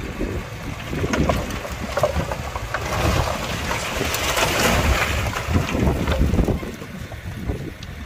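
Heavy diesel earthmoving machinery working: a continuous low rumble with irregular knocks and clatter, and wind on the microphone. A broader rushing swell builds in the middle.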